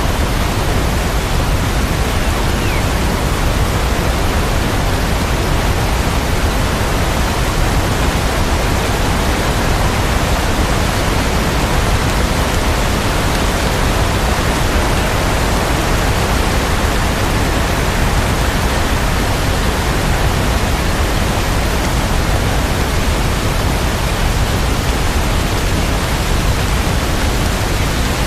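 Steady, dense rain sound: an even hiss with no separate drops, thunder or music standing out.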